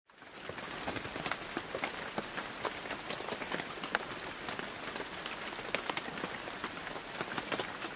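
Steady rain, with many separate drops striking a surface; it fades in at the very start.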